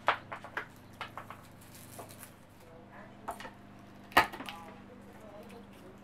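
Garlic cloves and a kitchen knife handled on a wooden cutting board: scattered sharp clicks and knocks, with one louder thump about four seconds in.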